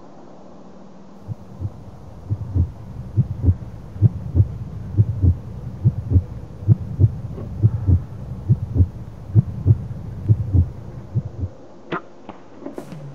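Heartbeat sound effect: a steady low double thump, lub-dub, repeating a little more than once a second. It starts about a second in and stops shortly before the end, followed by a few sharp clicks.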